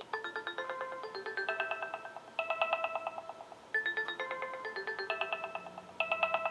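Sonim XP6 phone ringtone playing: a synthesized melody of short, rapidly repeated notes. The phrase loops, starting over nearly four seconds in.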